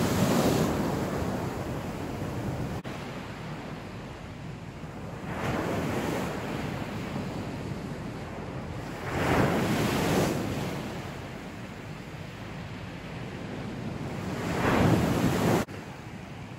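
Surf breaking on a beach: waves rise and wash in four times, roughly every five seconds, over a steady hiss of sea. The last wave cuts off suddenly near the end.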